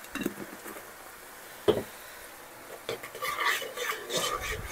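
A cooking utensil knocking once against a pan, then scraping and clinking in it as the garlic is stirred into the melting butter.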